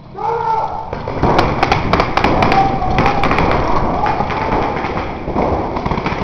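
Paintball markers firing in rapid, irregular volleys, a dense crackle of shots with players shouting over them. The shooting starts suddenly at the outset and is heavy from about a second in.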